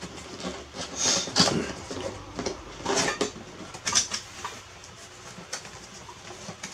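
A cardboard box being opened by hand: flaps pulled and folded back with rustling and scraping, with several sharp knocks and clinks from the enamel cups and plates packed inside.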